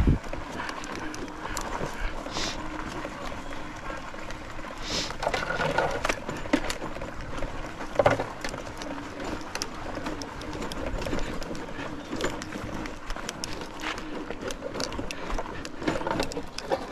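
Small motorbike engine running at low speed along a rough forest track, with a steady hum under frequent knocks and rattles from bumps, the sharpest about eight seconds in.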